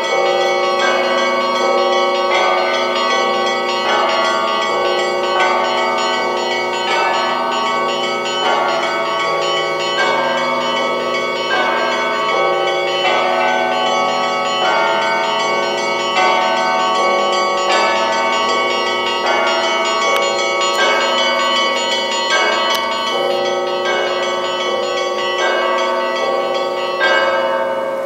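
Russian Orthodox church bells rung by hand from ropes in a continuous festal peal: the small bells keep up a repeating pattern over deeper bells, their strokes overlapping into dense ringing. Near the end the peal stops with a last stroke and the bells ring out and fade.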